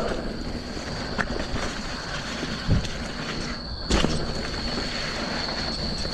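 A mountain bike rolling over a wet dirt trail: steady tyre and rattle noise, with two sharp knocks from bumps, one under 3 seconds in and a louder one about 4 seconds in. A steady high whine runs underneath.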